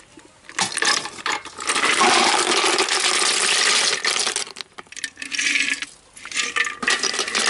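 Boiled snails and their cooking water poured from a clay pot into an aluminium basin: shells clattering on the metal with splashing water. One long pour of about four seconds, then a few shorter rattles.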